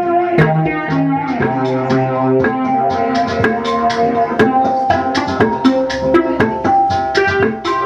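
Improvised music: small bossed gongs and hand percussion struck in a quick, uneven pattern, over held pitched notes that slide up and down.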